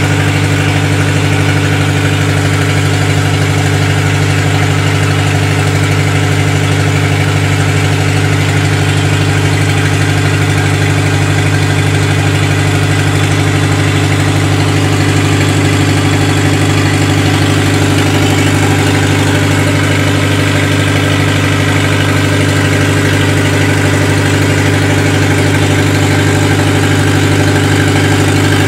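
Lister HA4 four-cylinder air-cooled diesel generator engine running steadily at constant speed, loud, with no muffler fitted.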